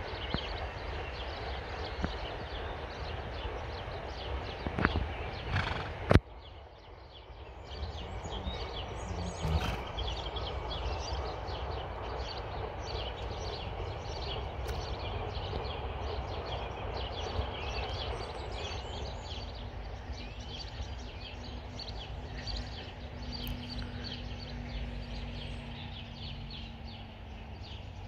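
Hooves of a ridden horse moving around an arena surface, under a steady rumble of wind on the microphone. A single sharp knock comes about six seconds in.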